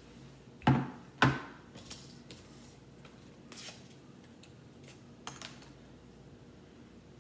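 A plate set down on a table: two sharp knocks about half a second apart, followed by a couple of faint rustles as a small paper packet is handled.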